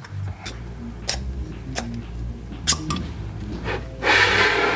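Scattered light plastic clicks of hair clips and a small plastic glitter tube being handled on a tabletop, with a louder rustling burst near the end.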